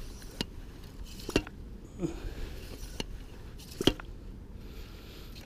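Wet squelches and about five short, sharp clicks as a lugworm bait pump is handled over a water-filled hole in wet sand.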